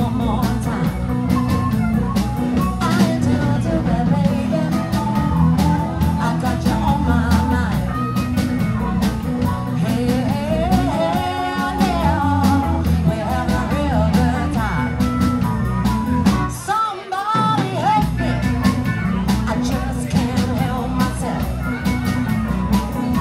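Live blues band playing a shuffle on drums, electric guitar and keyboard, with a high lead line bending in pitch over the top. About seventeen seconds in, the drums and low end drop out for a moment, then the band comes back in.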